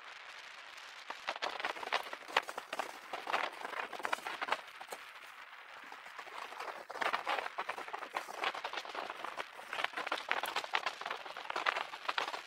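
Folding bicycle rattling and clattering as it rolls over the road, in irregular bursts of clicks and knocks that come and go over two long stretches, over a steady rush of riding noise.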